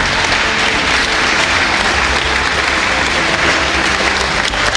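Audience clapping: steady applause from a crowd of many hands.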